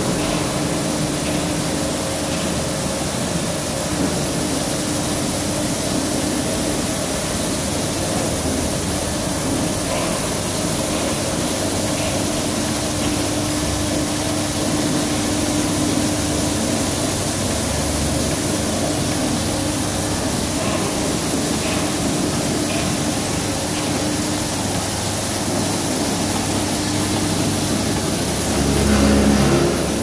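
Automatic carpet washing machine running: its motors hum and water sprays while the rotating brush discs scrub a rug. The sound is a steady whirring noise, with a brief louder low swell near the end.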